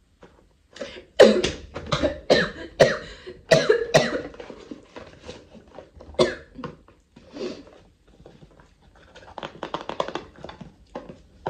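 A woman coughing hard in a choking fit. A run of harsh coughs starts about a second in and lasts around three seconds, a single cough follows near the middle, and a spluttering cluster of coughs comes near the end.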